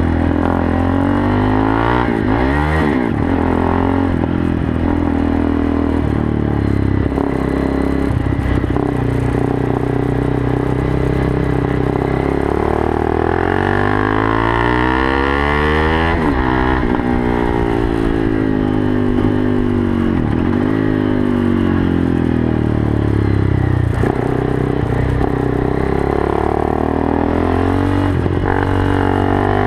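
2015 KTM RC390's single-cylinder engine through a Yoshimura dual undertail exhaust, under way on track, its pitch rising and falling again and again as the rider accelerates, shifts and slows.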